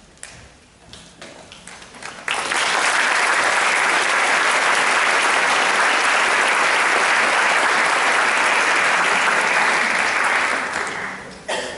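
Audience applauding. The clapping breaks out suddenly about two seconds in, holds steady, and dies away near the end.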